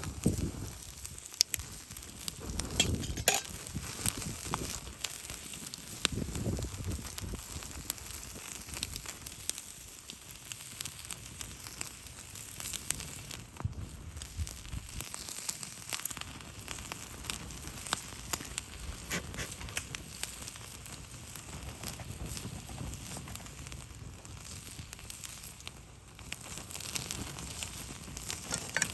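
A fire crackling, with irregular sharp pops over a steady hiss.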